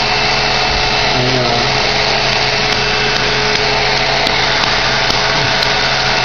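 Steady whooshing of an electric blower motor, running without a break, with a faint steady whine on top.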